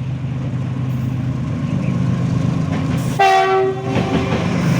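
Train running over a bridge with a steady low rumble and hum that slowly grows louder; about three seconds in the locomotive's horn sounds one short blast.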